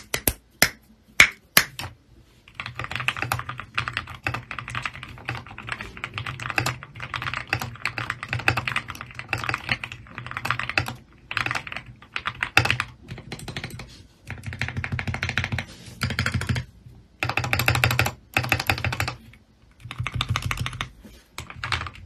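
Typing sound test on a Gamakay K61 mechanical keyboard with an acrylic case, lubricated KTT Grapefruit linear switches and tape and foam mods. It opens with a few single key presses, then fast runs of keystrokes broken by short pauses. The stabilised keys tick a lot, which the reviewer says needs fixing.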